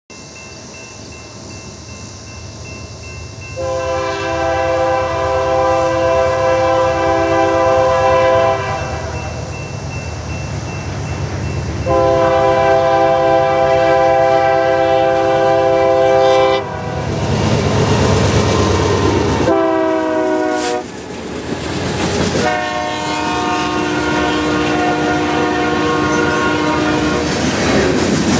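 Diesel locomotive air horn on a BNSF grain train sounding a chord in the grade-crossing pattern: two long blasts, a short one, then a final long one, its pitch falling during the short blast as the locomotive passes so that the last blast sounds lower. Under it the train's rumble grows louder as it nears and passes.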